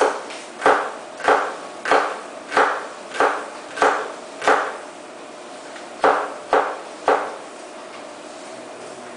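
Kitchen knife chopping shallots on a wooden cutting board: eight even knocks about one and a half per second, a short pause, then three more.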